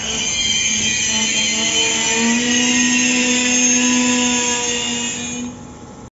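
Intercity Notte passenger coaches rolling slowly past, their steel wheels squealing on the track: a loud, sustained shrill squeal of several high tones over a lower steady hum. It fades out about five and a half seconds in.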